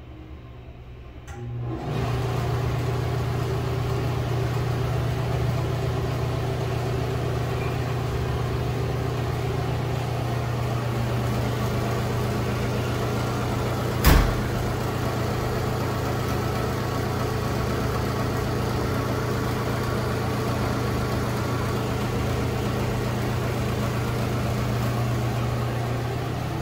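Loren Cook restroom exhaust fan switched on: it comes up to full speed within a second or so, about two seconds in, then runs with a loud, steady hum. The fan is pretty noisy and rattly, its grille possibly having been hit. One sharp knock about halfway through.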